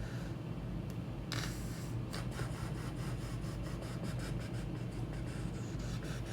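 Typing on a computer keyboard: a run of quick, irregular key clicks starting about a second in, over a steady low hum.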